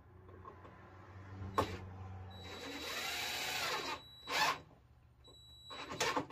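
Power drill driving screws home into wood: the motor turns slowly at first, then runs at full speed with a high whine for about a second and a half, followed by two short bursts of the trigger.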